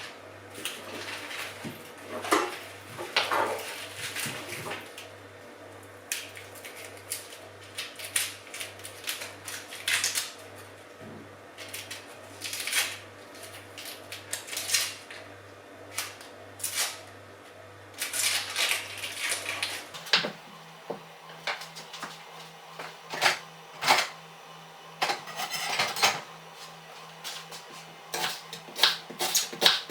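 Kitchenware being handled: pots, dishes and utensils knocking and clinking at irregular intervals, over a steady low hum that shifts higher about two thirds of the way through.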